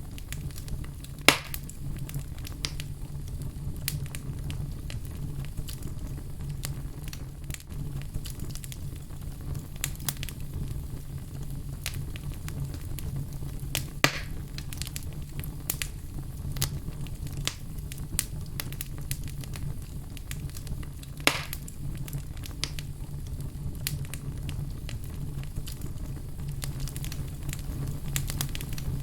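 Wood fire crackling in a fireplace: constant small crackles over a steady low rumble, with three louder sharp pops, about a second in, about halfway, and about two-thirds of the way through.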